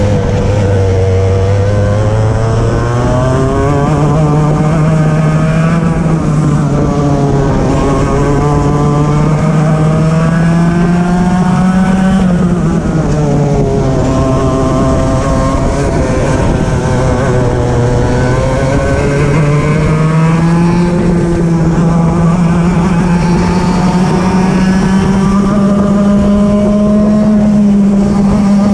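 Racing kart engine heard onboard at full racing pace, its note climbing as it accelerates and falling off as it slows for corners: revs rise over the first few seconds, drop about halfway through, and climb again in the last third.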